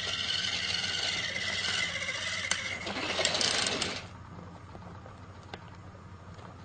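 Motorized toy train's small motor and gears running, getting louder just before it cuts off about four seconds in; a few faint clicks follow.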